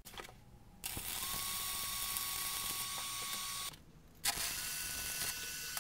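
Stick-welding arc crackling and hissing steadily in two runs: one of about three seconds, a brief break, then the arc struck again.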